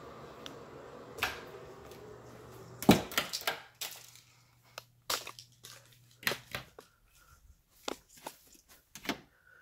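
Rubbing, crackling and clicks of a handheld phone being handled as it is carried, with one loud knock about three seconds in followed by scattered short clicks. A low steady hum fills the first half and then fades.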